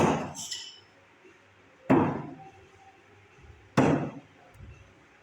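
Three thrown knives striking a wooden target one after another, each a sharp thud about two seconds apart, with a light metallic clink just after the first.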